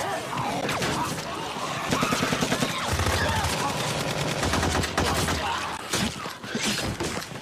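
Rapid automatic gunfire in a TV drama's sound mix: a dense rattle of shots that thickens about two seconds in and runs for a few seconds.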